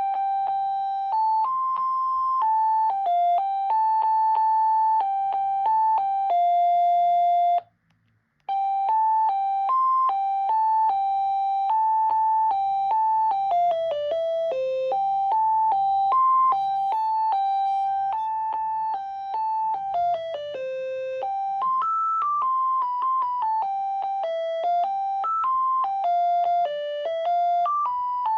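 Panasonic KX-TCD440 DECT cordless phone playing its built-in ringtones: simple electronic melodies, one note at a time. There is a brief gap about eight seconds in before the next melody starts.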